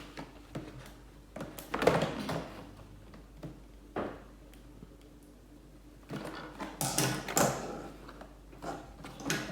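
Scissors cutting through packing tape on a cardboard toy box, with irregular scrapes, snips and knocks as the box is handled.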